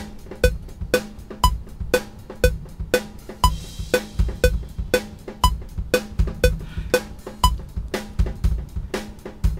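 Drum beat of kick, snare and rimshot hits, about two main hits a second, fed through an Ibanez DM1000 digital delay as a test of its effect, with lighter repeated hits between the main beats.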